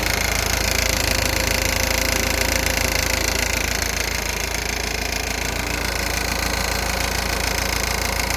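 Audi A4 B8 2.0 TDI diesel engine running steadily with a rattle from the belt pulleys, which the owner takes for a faulty tensioner pulley.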